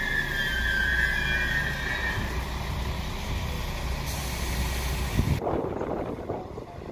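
Alstom Coradia LINT 41 diesel railcar (class 1648) close by, its engine humming low under a high, steady squeal that dies away about two seconds in. Near the end the sound changes abruptly to quieter station ambience.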